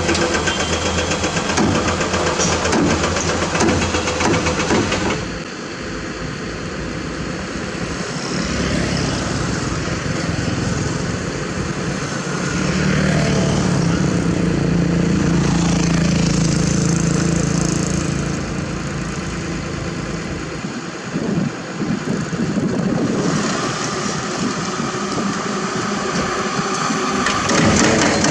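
Mitsubishi Fuso dump truck diesel engines running, loud and continuous. The engine note is strongest and steadiest in the middle stretch, and the sound changes abruptly about five seconds in and again near the end.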